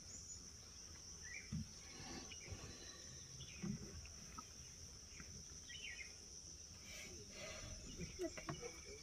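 Faint, steady high-pitched drone of insects in the forest, with a few soft thumps about one and a half and three and a half seconds in.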